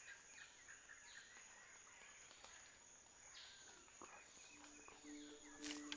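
Faint forest ambience: a steady high-pitched insect drone with a few soft falling calls. Near the end, low sustained tones come in.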